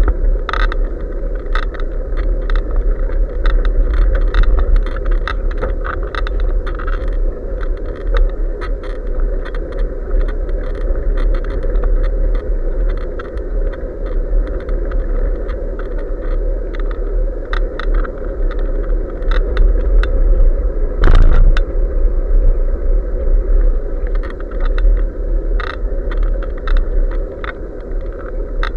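Wind buffeting and road rumble picked up by a bicycle-mounted action camera while riding, with frequent small rattling clicks and one louder knock about two-thirds of the way through.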